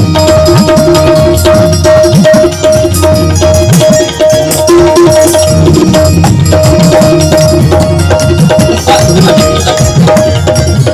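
Live devotional music: hand drums playing a busy rhythm under a high note that repeats in short pulses.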